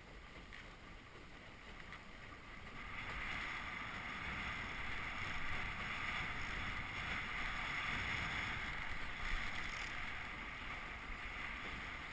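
Water rushing and hissing along the hull of a Melges 17 sailboat under sail, over a low rumble of wind on the microphone. The rush grows louder about three seconds in and stays up.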